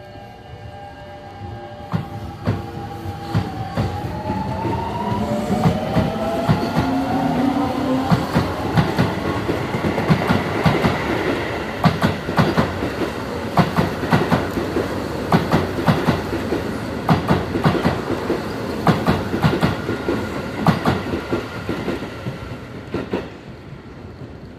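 Keio 8000-series electric train pulling out and accelerating past. Its traction inverter and motors whine in steady tones that rise in pitch over the first several seconds as it gathers speed, then the wheels clatter over rail joints in quick succession as the cars go by, fading near the end as the last car leaves.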